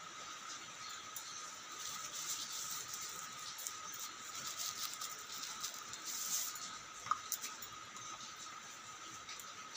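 Thin plastic bag crinkling and rustling as it is handled, in irregular crackles with a sharp click about seven seconds in, over a steady faint whine.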